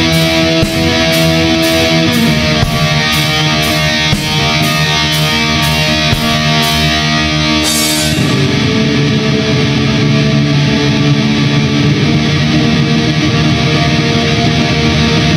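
Black metal: distorted electric guitar chords over drums, with sharp high hits about twice a second. The hits stop about seven seconds in, and the riff moves to a lower, thicker chord about a second later.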